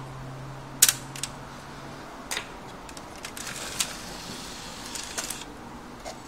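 Sharp plastic clicks and ticks from the opened PS3 Slim's Blu-ray drive as a disc is set in and the drive mechanism starts up, the loudest click about a second in, with a faint hiss in the middle stretch.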